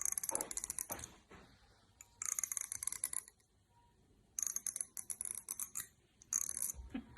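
Fingernail strummed along the teeth of a comb, making a rapid, high-pitched clicking rasp in four short bursts.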